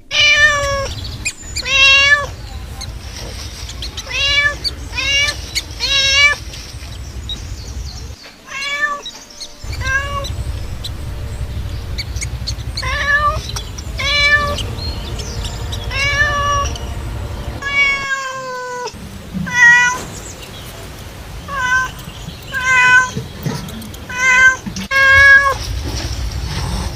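A cat meowing over and over, short bending calls coming every second or so, some in quick pairs and runs.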